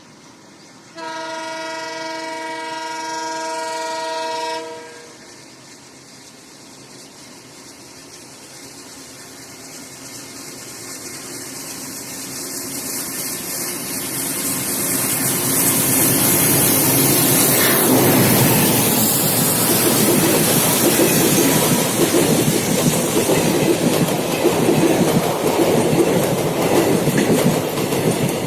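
WDG-3A ALCO diesel locomotive sounds one long multi-tone horn blast of about four seconds. Its engine note then grows and rises in pitch as it approaches at speed, and from about halfway through the locomotive and its train run past loudly without stopping.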